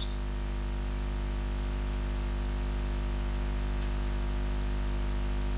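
Steady electrical mains hum with a layer of hiss, picked up in the recording chain. Nothing else sounds.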